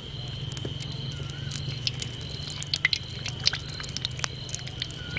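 Samosas frying gently in moderately hot oil in a karahi over a wood fire: scattered sharp crackles and pops. A steady high cricket trill and a low hum run underneath.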